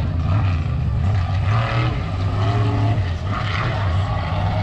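Off-road truck's engine running hard, its pitch rising and falling with the throttle as it drives between jumps.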